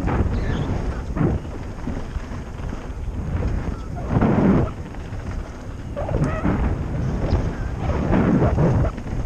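Wind buffeting a helmet-mounted action camera's microphone, over the rumble and rattle of mountain bike tyres on a dirt trail at speed, with louder surges about four seconds in and again near the end.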